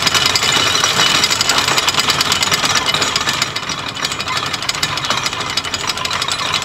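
Anchor chain running out over the yacht's windlass and through the hawse pipe in a loud, fast, continuous rattle. The chain is paying out with the brake left off, so the yacht stays free to manoeuvre on its propellers.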